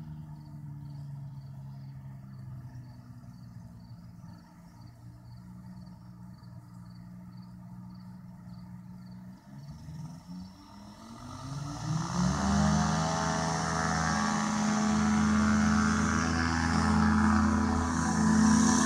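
Challenger ultralight aircraft's engine running steadily at low power, then throttling up with a rising pitch from about ten seconds in to full take-off power, loud and steady for the rest.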